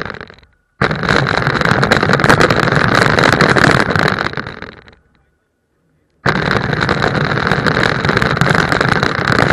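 Motor and wheels of a small red toy car driving on a wet street: a loud, rough whirr with road noise. It dies away to silence about half a second in and again about five seconds in, and starts again abruptly each time.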